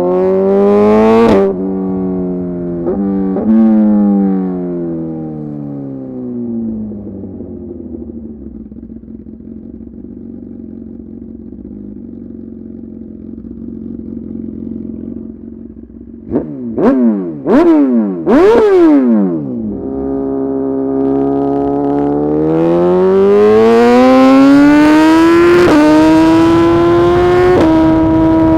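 Suzuki GSX-R 1000 R inline-four through a full titanium SC-Project exhaust. The revs rise briefly and then fall away as the bike slows, and it runs steadily at low revs for several seconds. Then come three quick throttle blips, and it accelerates hard, the pitch climbing with two upshifts near the end.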